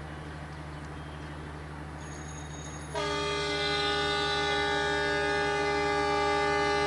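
A train's air horn starts suddenly about three seconds in and holds one long, steady chord of several notes, over a low, steady engine hum.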